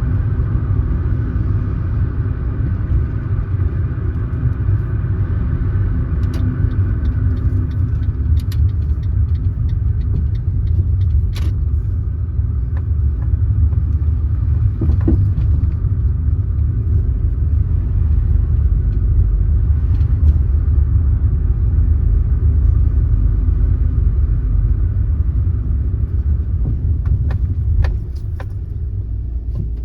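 Car driving on a road: a steady low rumble of tyres and engine, with a few faint clicks and rattles scattered through it. The rumble drops a little near the end.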